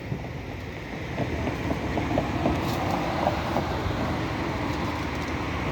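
Steady rumble of a car moving, road and engine noise heard from inside the cabin, growing a little louder about a second and a half in.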